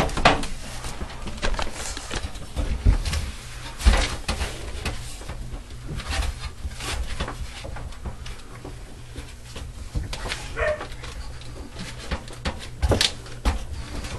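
Irregular knocks, thumps and clatter of someone standing on a metal folding attic ladder and moving things about in the attic, with a short high call about ten and a half seconds in.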